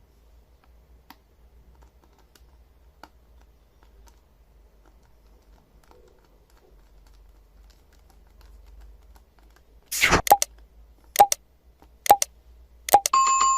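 Six loud, sharp clicks on the reassembled laptop, spread irregularly over the last few seconds, with a short electronic beep near the end.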